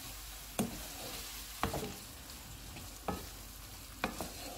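Onions, tomatoes and spices sizzling in oil in a nonstick kadai while a wooden spatula stirs them, with about five knocks of the spatula against the pan.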